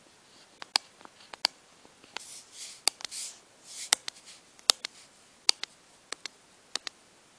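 Stylus tapping and scratching on a tablet touchscreen while writing by hand: sharp taps at irregular intervals, with short scratchy strokes clustered in the middle as letters are written.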